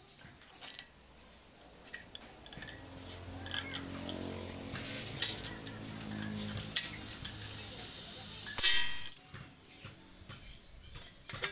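Hand tools clinking and scraping against sheet metal held in a steel bench vise, in scattered short clicks. A steady low hum runs through the middle, and a short, loud rasping burst comes about nine seconds in.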